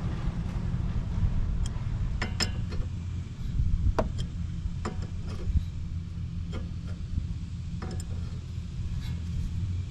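Steel wrenches clicking and clinking against a tie rod end while its nut is tightened: scattered sharp metallic clicks, the loudest about four seconds in, over a steady low rumble.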